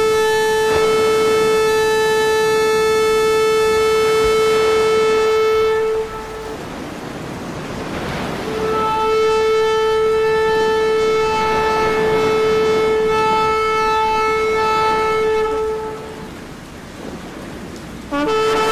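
Background music of long held, horn-like notes: one note sustained for about six seconds, a soft rushing swell between, then a second long note for about seven seconds, with a new note entering near the end.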